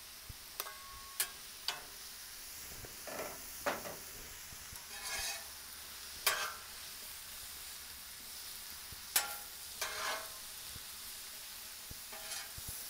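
Diced potatoes and mushrooms sizzling on a Blackstone steel flat-top griddle, with metal spatulas scraping and clacking on the griddle surface as they are turned, a scrape or clack every second or two over the steady sizzle.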